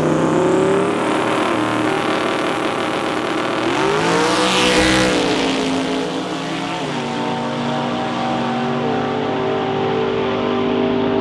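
Two street drag-racing cars at full throttle down the strip, engine pitch climbing and then dropping as they shift gears. There is a rush of noise about four to five seconds in.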